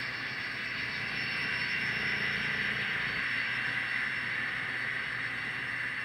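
N-scale model freight train running along the layout track: a steady whirring hiss of the small locomotive motors and metal wheels rolling on the rails, swelling slightly a couple of seconds in.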